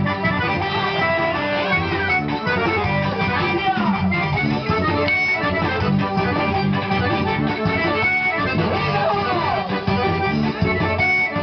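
Forró music for a quadrilha dance, with an accordion leading over guitar.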